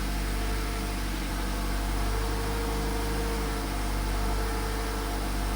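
Volkswagen Polo Sedan petrol engine running steadily with the throttle held slightly open, at the revs of about 1500 where the owner finds its knocking stops. A steady whine comes in about two seconds in.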